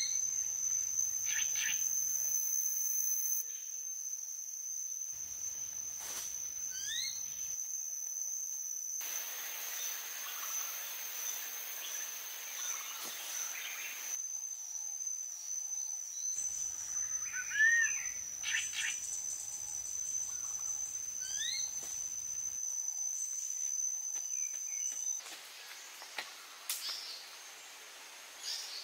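Forest ambience: a steady high-pitched insect drone that stops about three-quarters of the way through, with a few short bird chirps over it, the loudest a little past the middle.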